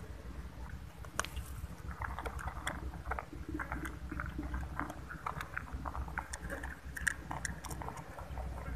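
Cats eating dry kibble from plastic bowls: a string of short, irregular crunches and clicks over a low steady rumble.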